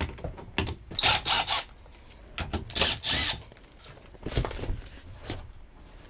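Cordless drill-driver backing screws out of an air handler's sheet-metal access panel in short bursts: three quick runs about a second in, two more around three seconds, one more later, with clatter of metal being handled in between.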